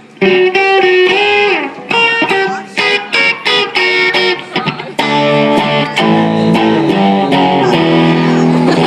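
Electric guitar played through an amplifier, picking out separate chords for the first few seconds, then fuller, sustained chords from about five seconds in.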